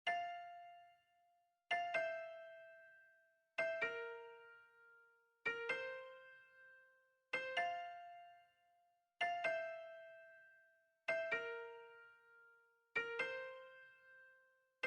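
Intro music: a slow keyboard phrase, probably piano-like, of eight struck notes or chords, about one every two seconds, each ringing out and fading before the next.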